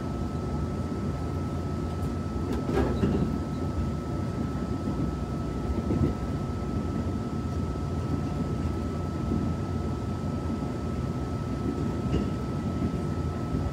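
Interior running noise of a Taiwan Railways push-pull Tze-Chiang express carriage under way: a steady rumble of wheels on track with a thin steady high hum, and a few short knocks about three and six seconds in.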